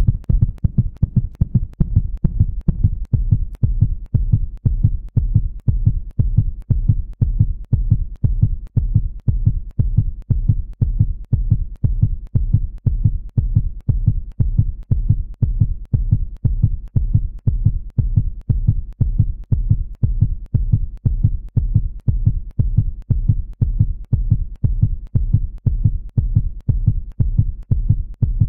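A heartbeat sound effect: low, dull thumps repeating in a steady, even rhythm.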